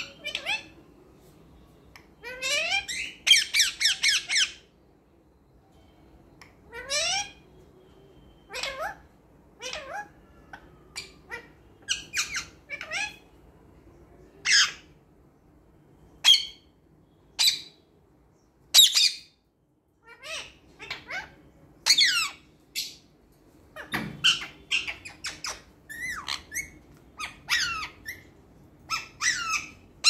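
Rose-ringed parakeet giving short, shrill squawks and chirps in irregular bursts, with a quick run of calls about three seconds in and short pauses between.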